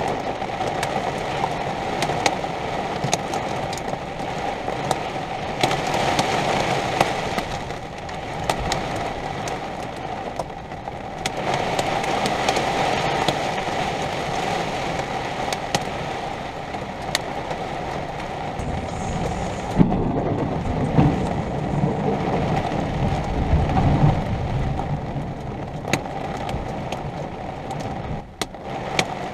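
Heavy thunderstorm rain, an even hiss dotted with many sharp ticks of drops striking a surface, over a steady hum. A low rumble of thunder rolls in about two-thirds of the way through and fades.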